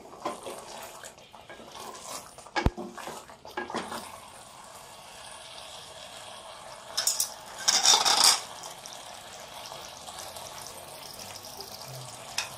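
A wooden spatula stirs thick spinach-and-mutton curry in an aluminium pot, scraping, with one sharp knock against the pot about two and a half seconds in. The spatula is then left in the pot, and the curry fries with a faint sizzle as the last of the spinach water cooks off. A little past the middle there are two brief, louder noisy bursts.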